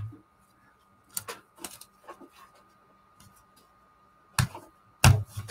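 Baseball cards in plastic toploaders and sleeves clicking and tapping against each other and the table as they are handled and laid down. There are a few separate sharp clicks, and the loudest two come near the end.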